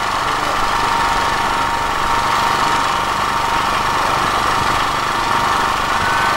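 An engine or motor running steadily: a continuous mechanical drone with a few steady tones, unchanging throughout.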